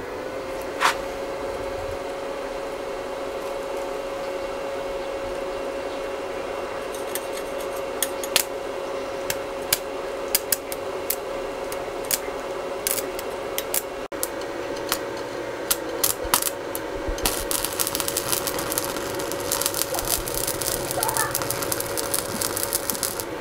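MMA-250A inverter stick welder humming with one steady tone once switched on. Scattered sharp cracks as the electrode strikes the steel, then the welding arc crackling continuously from about two-thirds of the way in.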